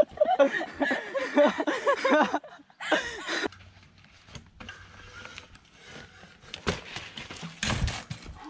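A person's voice crying out during the first seconds of a mountain-unicycle fall, then scattered clicks and rattles, and a loud thump near the end as a crashing unicycle hits the ground and a tree.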